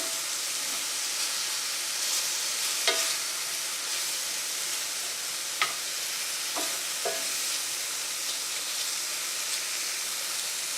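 Mushrooms frying in butter in a pan, a steady sizzle, with a few light clicks of a utensil against the pan.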